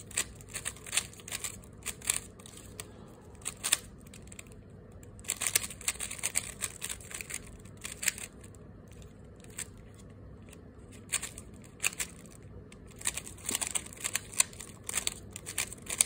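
3x3 speedcube turned rapidly by hand during a timed solve: bursts of quick plastic clicks and clacks as the layers snap round. The bursts are broken by short pauses, with the longest sparse stretch a little past the middle.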